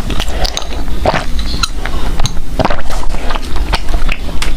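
Close-miked chewing with irregular wet mouth smacks and clicks, over a steady low rumble.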